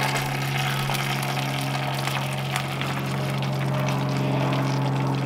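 Steady low machine hum with a continuous hiss behind it.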